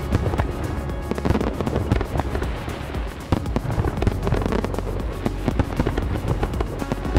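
Fireworks display going off in quick succession, a steady run of bangs and crackles, with music playing alongside.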